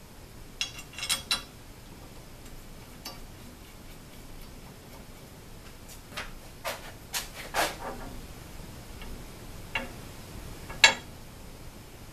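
Light metal clicks and knocks as aluminium parts of a CNC router frame are handled and shifted: a quick cluster about a second in, a run of several in the middle, and a single sharper clink near the end, the loudest of them.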